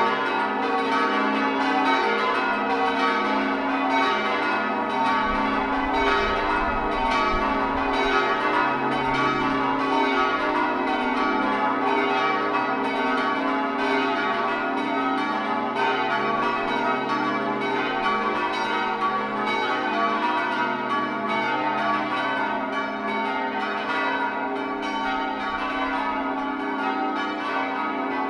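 The ring of eight church bells at Brightling, tenor 12–1–9 in F♯, rung full-circle in continuous succession. Strike follows strike steadily, and the bells' ringing tones overlap into a dense wash.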